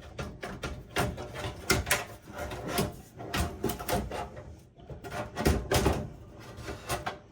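A desktop PC power supply being worked loose and pulled out of its metal case: a run of irregular knocks, clunks and scrapes, loudest in a cluster about five and a half seconds in.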